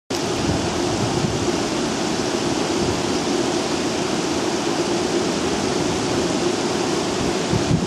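Steady loud rushing noise that starts abruptly and holds even throughout.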